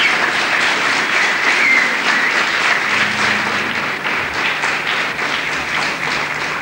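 Audience applauding after a song, a dense patter of many hands clapping that begins to die down near the end.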